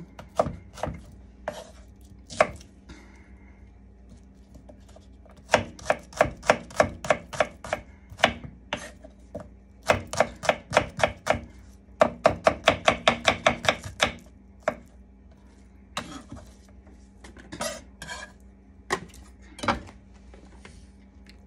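Chef's knife chopping shallots on a wooden cutting board: runs of quick, sharp strikes several a second, broken by short pauses and a few single cuts.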